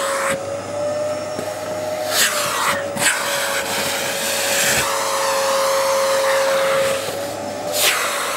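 Vacuum cleaner running with a steady whine over the rush of suction through a bare wand tube. The hiss dips and swoops several times as the open tube is drawn over the cat's fur and tail and partly blocked.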